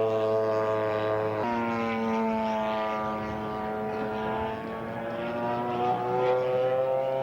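Radio-controlled scale model airplane's propeller engine running, a steady buzzing tone whose pitch jumps up about a second and a half in, sags slowly, then climbs again near the end.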